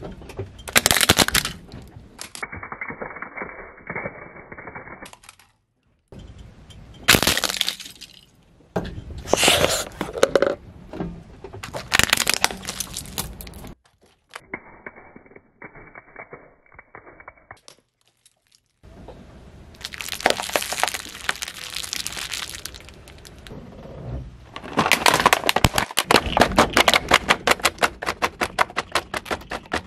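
Hard plastic toys cracking and breaking under a car tyre, in several separate crushes of sharp cracks and crunching. Near the end comes a fast run of cracks, and two stretches are muffled.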